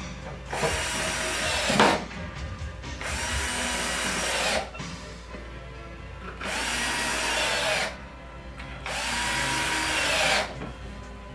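Cordless drill driving wood screws into a cabinet drawer box: four separate runs of about a second and a half each, the motor slowing near the end of each as the screw draws tight.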